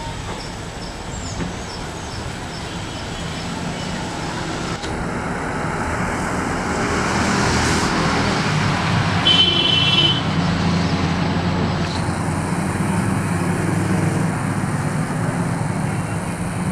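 Indian Railways passenger coaches rolling past, a steady rumble of steel wheels on the rails that grows louder toward the middle. A brief high-pitched tone comes about nine seconds in.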